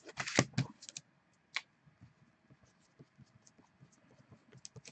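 Hard plastic trading-card holders clacking and scraping as they are set down on a table, loudest in the first second, followed by a single click and then scattered light ticks.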